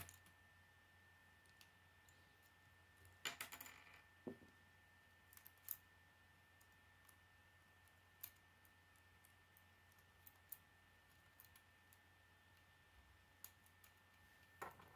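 Mostly near silence, broken by sparse light clicks and a short clatter of plastic K'nex pieces being handled and snapped together, with the busiest rattling about three seconds in.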